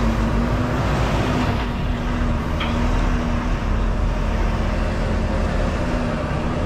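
Semi truck's diesel engine running steadily, heard from inside the cab as the truck moves through a yard: a continuous low rumble with a steady hum.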